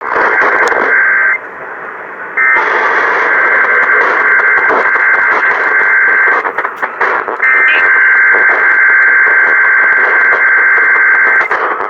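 Emergency Alert System SAME header bursts, harsh buzzy digital data tones heard through AM radio with noise: a short burst that ends about a second in, then two longer bursts of about four seconds each, a second apart. They open an EAS Required Monthly Test.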